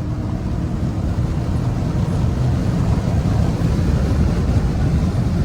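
Car engine and road noise heard from inside a moving car, a steady low rumble that grows slightly louder as it goes.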